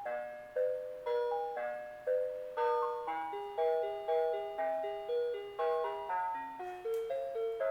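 Simple electronic Christmas tune from the built-in music chip of a Christmas Fantasy Wonderland Skaters Pond. It plays a melody of clean, chime-like notes, each struck and fading, about two to the second.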